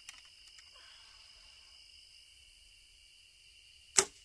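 A compound bow is shot off a trigger release: about four seconds in, one sharp loud crack as the string snaps forward, followed by a fainter knock. Steady high insect chirring is heard behind it.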